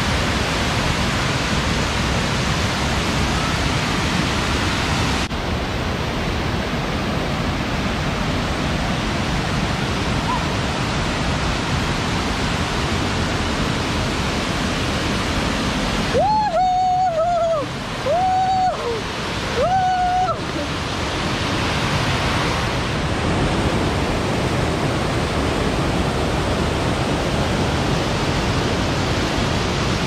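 Waterfall and stream cascades rushing heavily, a steady loud roar of falling water after heavy rain. About halfway through, three short pitched calls break in, the water rush dipping under them.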